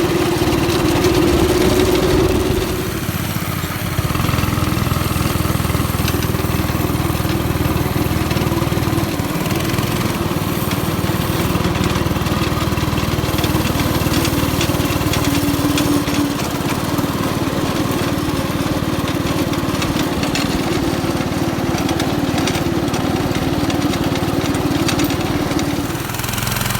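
Small go-kart engine running as the kart is driven, its note easing off about three seconds in and again near the end.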